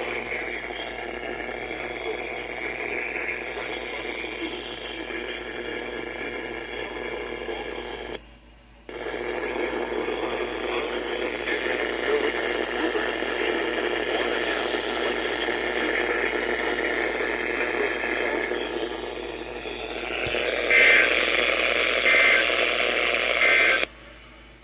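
NOAA weather radio receiver putting out a weak, static-filled broadcast hiss that cuts out for under a second about 8 s in. About 20 s in there is a click, then three short, evenly spaced bursts of data tones: the coded SAME header that the weather radio sends before an alert.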